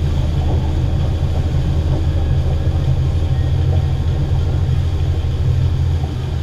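Outboard motor running steadily at speed while towing a tube, a constant low drone with the rush of churned water from the wake; it eases a little near the end.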